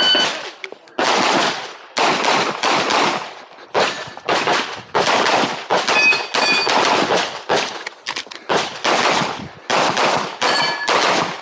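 Canik Rival 9mm pistol firing a long string of shots, many in quick pairs, with short pauses between groups as the shooter moves between targets.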